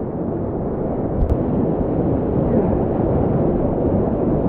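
Steady rush of whitewater from a river rapid, growing a little louder as the kayak moves in, with a single sharp click about a second in.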